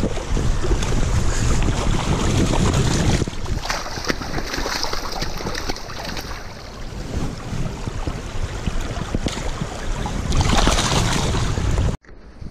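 Wind buffeting the microphone over the rush of a shallow, stony creek. The noise is steady, swells with a brighter hiss near the end, and then cuts off suddenly.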